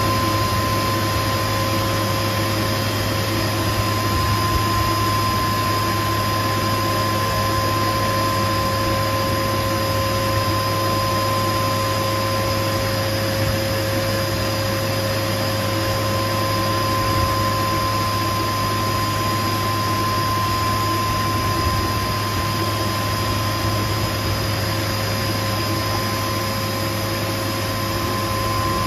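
CBN cam lobe grinding machine running steadily: a constant hum with a steady high-pitched whine over an even hiss.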